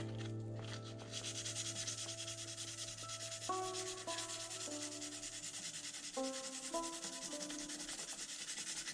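Sandpaper rubbed by hand over the painted body of an RC scale Jeep Cherokee, in quick, even back-and-forth strokes, several a second. The paint is being sanded through for a faded, worn patina.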